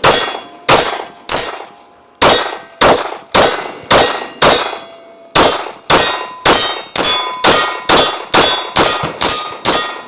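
Palmetto State Armory Dagger 9mm pistol firing about eighteen shots in quick succession through one magazine, each a sharp report with a short ringing tail. There are two brief pauses in the string, about two seconds in and again near the middle.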